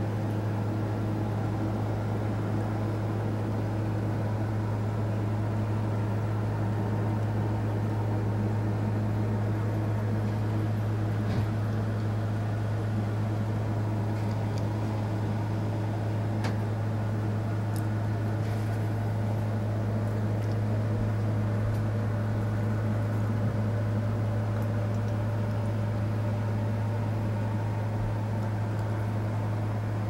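A steady low machine hum that holds constant throughout, with a few faint clicks in the middle.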